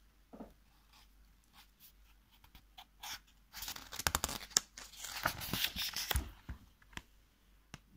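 A picture-book page being turned by hand: a paper rustle and crinkle with small clicks, starting about three and a half seconds in and lasting some three seconds.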